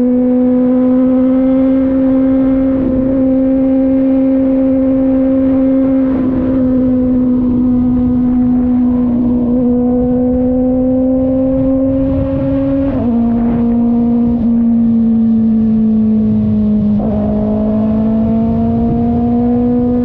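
Kove 450RR motorcycle's parallel-twin engine running steadily at high revs under way, its pitch slowly climbing and then stepping down twice near the middle and toward the end as it changes gear.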